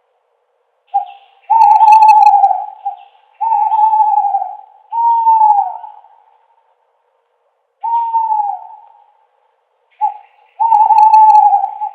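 An owl hooting: a run of hoots, each up to about a second long, several ending with a slight drop in pitch. The hoots come in two groups with a pause of about two seconds in the middle.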